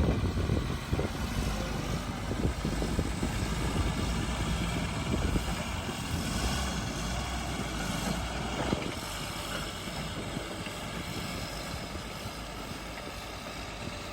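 Tata 10-wheeler truck's diesel engine running steadily, getting a little quieter toward the end.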